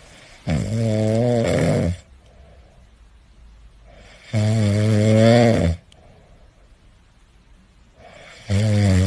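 Sleeping cat snoring: three long snores about four seconds apart, each a low wavering buzz lasting over a second.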